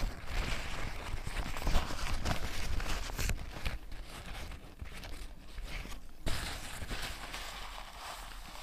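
Paper napkin being handled, rustling and crinkling, busiest in the first few seconds, with a soft knock about six seconds in.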